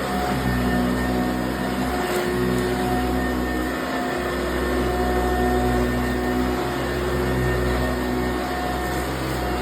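Eureka self-propelled upright vacuum cleaner running steadily, its motor giving a constant hum over the rush of suction.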